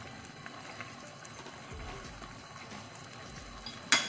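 Quiet kitchen handling noise with faint ticks, then one sharp clink about four seconds in as a cooking utensil strikes the pot.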